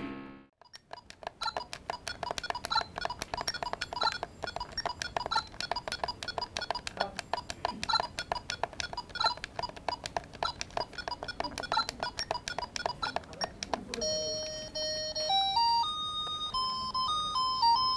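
Electronic sounds from a handheld game: a long run of fast ticks and short beeps, then, about fourteen seconds in, a simple beeping tune that steps from note to note.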